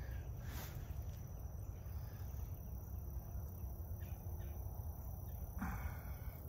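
Faint outdoor ambience: a steady high insect drone over a low rumble, with a short rustle about five and a half seconds in.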